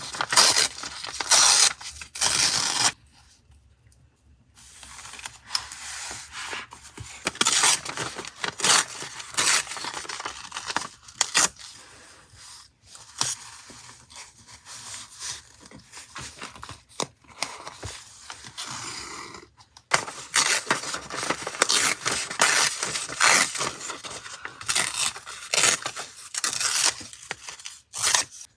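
Close-up paper crafting sounds of journal collage: paper and stickers rustling, scraping and crinkling in quick crisp bursts, with a short pause about three seconds in.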